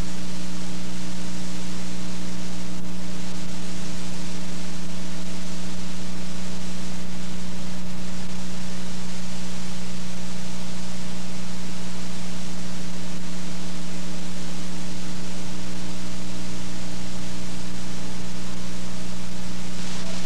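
Steady hiss with a constant low hum beneath it, at an even loudness: noise on a videotape's audio track with no programme sound on it.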